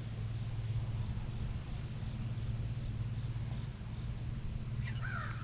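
Outdoor ambience: a steady low hum with a faint high insect chirp pulsing about two or three times a second. Near the end a bird starts calling, a run of short repeated calls.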